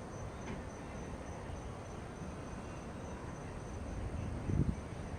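Night insects trilling steadily in a fast, even pulse over a low background rumble, with one brief low thump near the end.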